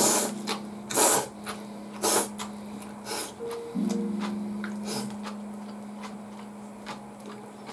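A person slurping ramen noodles in short pulls, about one a second, five times over the first five seconds, over soft background music with held piano-like notes.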